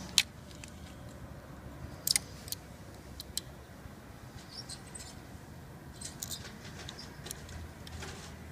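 Small metal parts clicking and clinking as they are fitted by hand into the clutch assembly of an Elebia e5 unit. The clicks are sharp and irregular, loudest just after the start and about two seconds in, over a steady low rumble.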